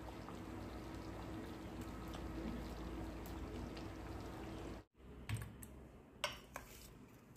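Mutton dalcha bubbling steadily as it simmers in an open pot. After a break, a few sharp clinks of a ladle against a steel serving bowl, the loudest about six seconds in.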